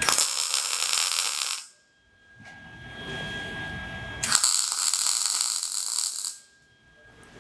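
MIG welder arc crackling on steel in two short runs of about two seconds each, tack-welding hinges onto the smoker lid, with low steady shop noise between them.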